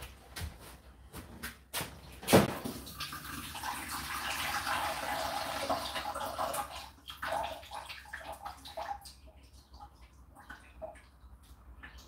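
Condensed water trickling and dripping in an Indesit IDC8T3 condenser tumble dryer, falling into the open slot where the water container has been pulled out. A knock comes about two seconds in, then a few seconds of trickling, then scattered drips.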